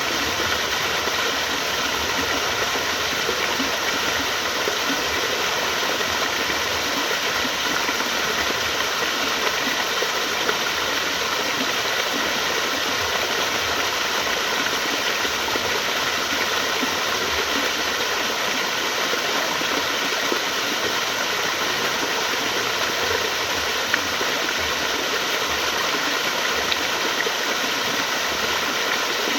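Flowing water rushing steadily and evenly, with no change in level.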